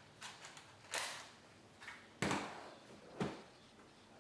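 Plastic clicks and knocks from a Toshiba Satellite laptop being handled as its battery pack is put back in. There are several separate sharp knocks, the loudest about two seconds in and another about a second later.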